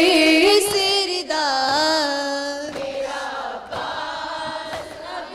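Young women's voices reciting an Urdu noha (Muharram lament) together, drawing out one long held note with wavering pitch between the words of the refrain. It softens about three seconds in.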